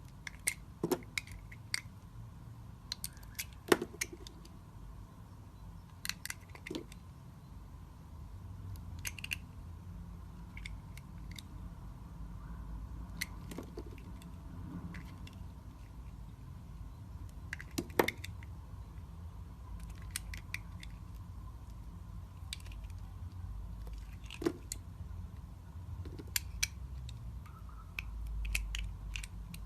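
Knife cutting into a bar of soap: irregular, sharp, crisp cuts and clicks, some single and some in quick clusters, over a steady low hum.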